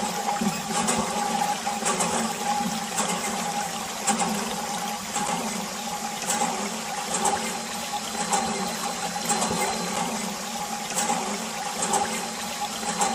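Steady rushing water, with faint brief splashes about once a second.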